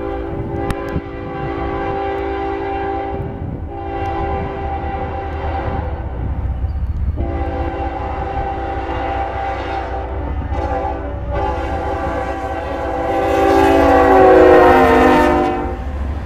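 Norfolk Southern GE ES44AC diesel locomotive sounding its air horn in a series of blasts for a grade crossing as it approaches, over the low rumble of the train. The last blast is the longest and loudest, and it drops in pitch as the locomotive passes.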